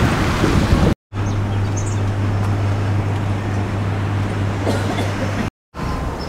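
Outdoor noise in short clips joined by abrupt cuts; the middle clip carries a steady low hum for about four seconds.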